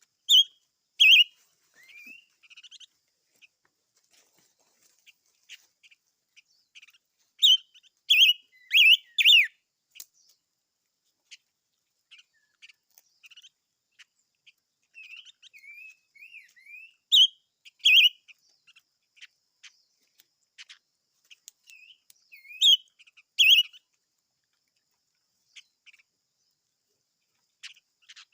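A small songbird singing: loud clusters of short, sharp chirps come a few times, with softer twittering and sliding whistled notes in between.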